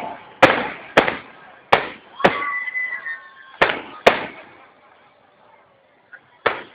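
Aerial firework shells bursting overhead: a run of sharp bangs, about six in the first four seconds, each trailing off in a crackle and echo, then a lull and one more bang near the end.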